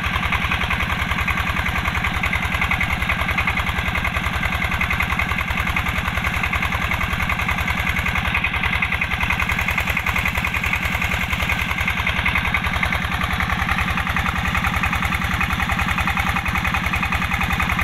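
Single-cylinder diesel engine running steadily with an even, fast thudding beat, belt-driving a well water pump.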